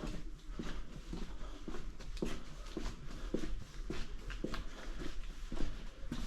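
Footsteps walking at a steady pace, about two steps a second.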